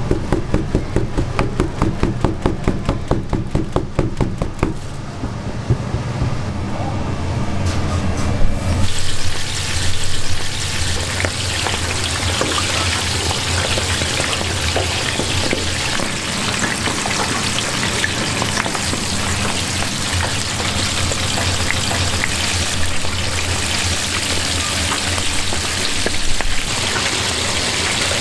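Whole squid being dredged and pressed in a tray of flour, making rapid repeated soft thuds. About nine seconds in, a steady loud sizzle starts as the squid goes into a deep fryer of hot oil and fries.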